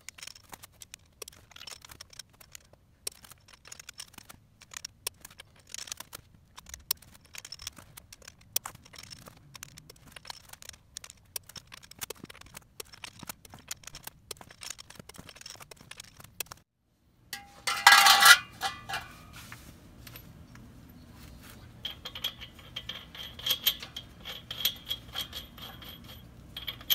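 Small metallic clicks and clinks from a torque wrench and lug nuts being worked on a bus's dual-wheel hub. About eighteen seconds in there is a short, loud metal clatter, followed by steadier clinking of the nuts.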